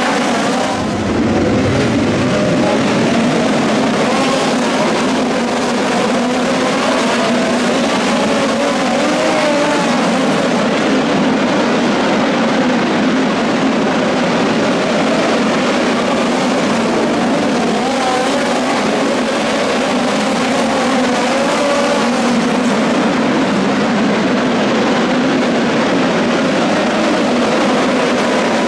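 Several midget race car engines running hard around a dirt oval. Their overlapping notes form a steady, loud drone whose pitches waver up and down as the cars go through the turns.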